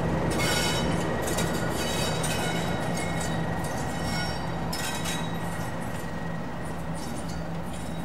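Heritage diesel locomotive engine running with a steady low note as the train moves, with high-pitched wheel squeals coming and going on the rails; the sound slowly fades.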